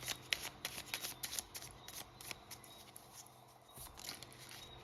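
A deck of reading cards being shuffled and handled: a quick run of sharp card flicks and clicks for about two and a half seconds, then fainter handling.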